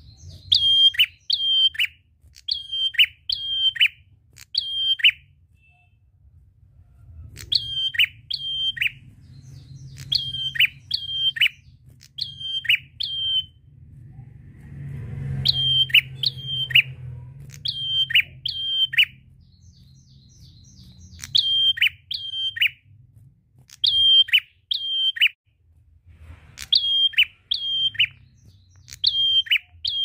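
A caged tailorbird (the 'prenjak kepala merah' of Indonesian bird keepers) singing in runs of two to four loud, sharp notes that each drop in pitch, with short pauses between runs. A faint low hum lies underneath and swells briefly around the middle.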